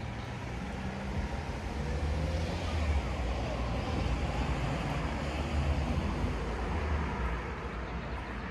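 Road traffic: a motor vehicle's low rumble that builds about a second and a half in, stays strongest through the middle and eases off near the end, as if a vehicle passes by.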